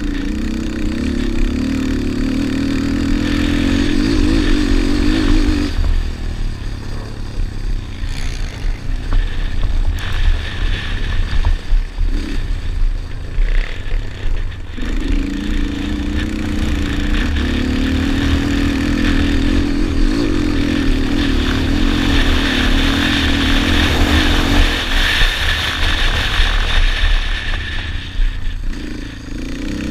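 Yamaha Raptor 250 quad's single-cylinder four-stroke engine running hard around a dirt track. It holds high revs, backs off about six seconds in, opens up again around halfway, and eases off briefly near the end, over a steady low rumble.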